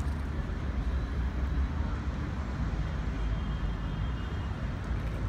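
Steady low noise of road traffic, an even rumble with no distinct events.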